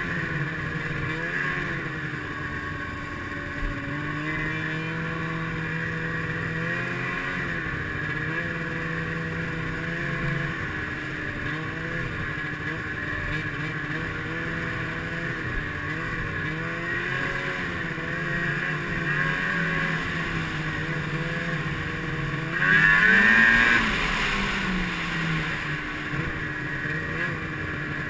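Snowmobile engine running steadily along a trail, its pitch rising and falling gently with the throttle. A few seconds before the end it revs up loudly and briefly, then falls back.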